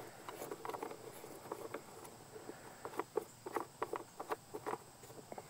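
Light plastic clicks and taps as the orange twist knobs on a lawn tractor's black plastic air cleaner cover are turned and the cover is worked loose, with a quicker run of sharp clicks about three to five seconds in.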